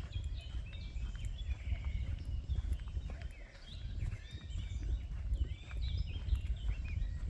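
Several birds singing and chirping in quick, overlapping phrases over a steady low rumble.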